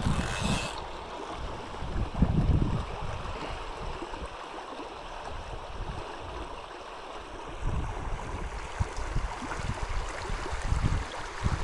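Wind buffeting the microphone in uneven gusts over the steady rush of a river's flowing water.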